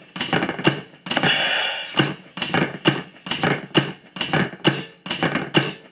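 Brunswick HLR 50-90 oxygen-driven heart-lung resuscitator running: its chest-compression piston cycles with a click and a hiss of gas a little under once a second. A longer hiss of air comes about a second in. The machine is set to give five compressions for one breath.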